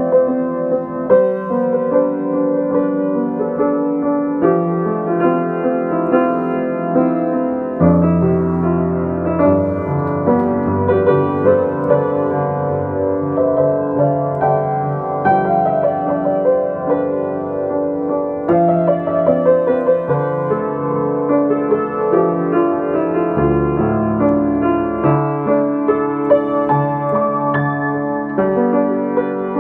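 Solo piano playing an instrumental piece of overlapping, sustained notes and chords. Deep bass notes come in about eight seconds in and again around twenty-three seconds.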